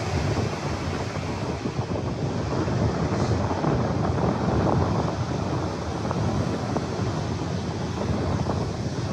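Surf breaking and washing up a sandy beach, with wind buffeting the microphone; the rush swells a little in the middle.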